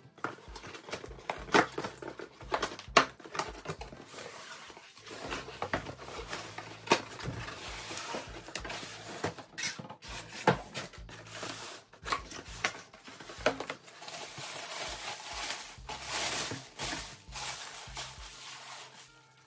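Cardboard box and packaging being handled: a series of sharp knocks and scrapes of cardboard flaps and inserts, then plastic bubble wrap rustling for the last few seconds as it is pulled away from a heavy cut-glass bowl.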